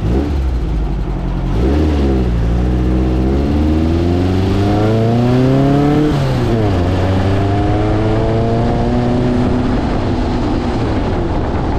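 A dune buggy's 1600cc air-cooled VW flat-four pulls through the gears while under way. The engine note climbs and drops sharply at a gear change about a second and a half in and again about six and a half seconds in, then climbs more slowly and levels off. The engine has been freshly tuned with new spark plugs and corrected plug wires, and it sounds 'just happy'.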